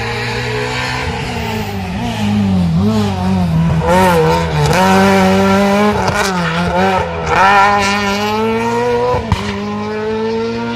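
Rally car engine passing through a junction: the revs drop and climb several times through lifts and gear changes, then rise as it pulls away, with a single sharp pop near the end.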